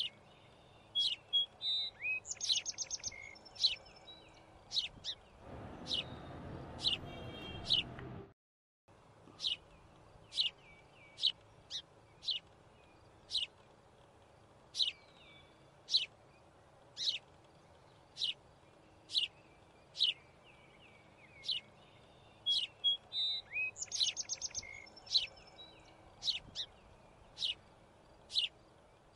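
Small birds chirping: short, sharp, high calls about once a second over a faint steady hiss. About six seconds in, a louder rushing noise joins for two seconds and cuts off abruptly.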